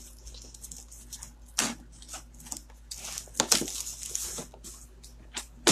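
Utility knife scraping and slitting packing tape and plastic wrap on a cardboard box: a run of short, irregular scratchy rasps, the loudest about a second and a half in and again around three and a half seconds. The blade is dull and is not cutting through easily.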